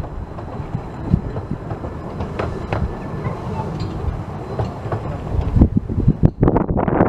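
15-inch-gauge steam train running along the line. In the last second and a half wind buffets the microphone with loud, ragged bursts.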